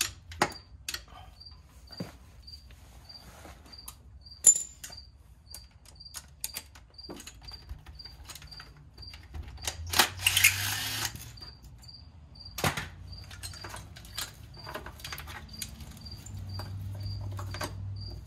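Tools clicking and clinking on the transfer case bracket bolt under a pickup truck, with a cordless power tool running for about a second, ten seconds in. A faint high chirp repeats about twice a second throughout.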